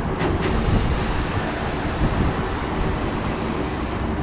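Compressed air hissing steadily into a truck tire through the air chuck as it is inflated after patching, over a low rumble, with a couple of short clicks just after the start.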